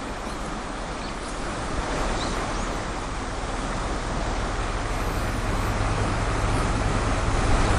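Steady rush of a shallow stream flowing over stones and gravel, with a low rumble that swells about five seconds in.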